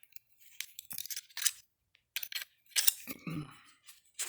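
Metal parts of an opened-up starter motor and hand tools being handled: scattered clicks, scrapes and clinks, with one sharp knock about three seconds in.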